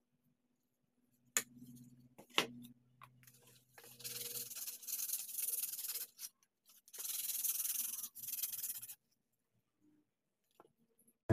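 A short, sharp plastic click, then a second one about a second later, followed by two spells of hand sanding, each about two seconds long: sandpaper rubbed back and forth on a small cut piece of PVC, a dry rasping hiss.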